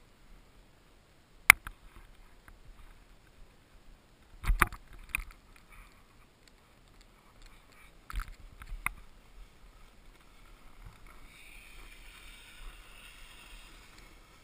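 Snowboard sliding over groomed snow, giving a low hiss broken by sharp knocks: one about a second and a half in, a cluster around four to five seconds, and two more around eight to nine seconds. The hiss grows a little stronger in the last few seconds.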